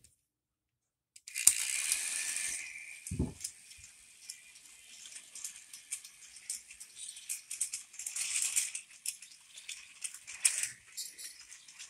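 Battery-powered toy train running on plastic track: a small motor's steady whine under dense clicking and rattling of the plastic wagons and track. It starts about a second in, loudest at first, with a short low thump about two seconds later.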